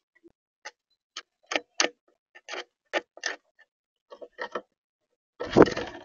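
A European starling pecking at seed in a plastic feeder tray: a dozen or so sharp, irregular clicks. Near the end, a louder burst of flapping wings as a bird takes off from the feeder.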